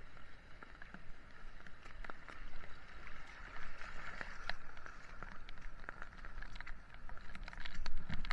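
Footsteps crunching on a wet, stony path in light rain, with water running over rocks: a steady hiss with many small sharp clicks.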